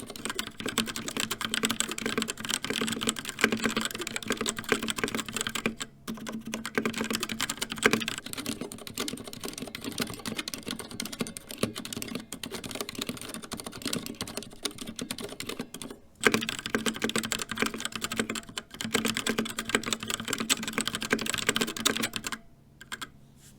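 Fast continuous typing on a CZC Halfling mechanical keyboard, a dense patter of keystrokes, with Kailh Red linear switches and Cherry MX Silent Red switches heard in turn between short breaks. The typing stops shortly before the end.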